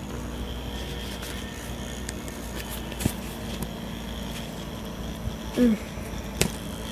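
Small DC hobby motor spinning a plastic propeller, switching on at the start and then running with a steady whirring hum. Two sharp clicks about three seconds in and again near the end.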